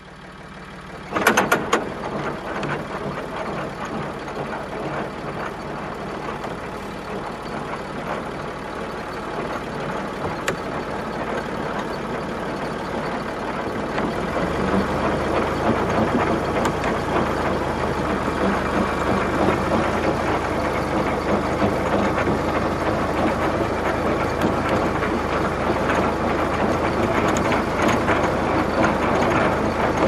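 Heavy vehicle engine running steadily, with a short loud burst about a second in. The engine grows deeper and louder from about halfway through.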